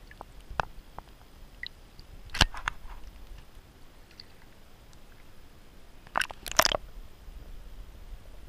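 Splashing at the water surface from a largemouth bass taking a topwater frog lure, in two short bursts about two seconds in and, loudest, around six seconds in, with a few small clicks between.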